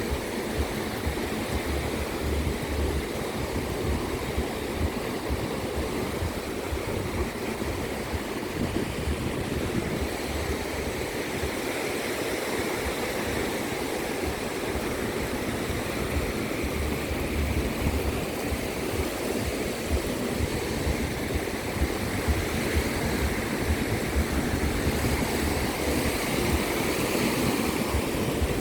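Ocean waves washing steadily onto a beach, a continuous surf wash that grows a little louder over the second half.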